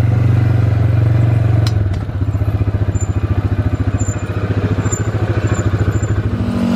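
Engine of an ATV-style utility shuttle running while riding along. A steady drone gives way about two seconds in to a slower, pulsing low note.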